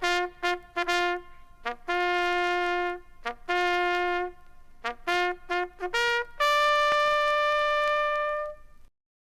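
Bugle call on a solo brass horn: quick short notes and several longer held notes, all on the few open bugle notes, ending on one long held note that stops just before the end.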